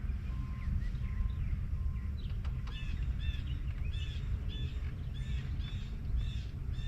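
A songbird singing a run of repeated, arching high notes, about two a second, starting a little over halfway in, over a steady low rumble.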